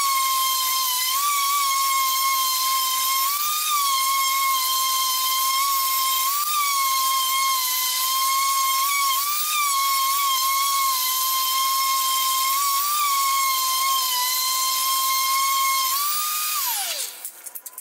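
A high-speed power tool's motor whining steadily, its pitch sagging and recovering every few seconds as load comes on and off. It then switches off and winds down in a quick falling whine, followed by a few light rattles.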